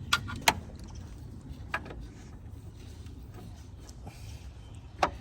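About four sharp clicks and knocks, of hand tools and loose parts being handled at a Mini Cooper S R56 engine during timing-chain removal, over a low steady hum.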